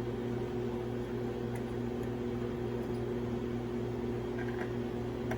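Electric motor of a shop machine running steadily with an even hum, no cutting or impacts standing out.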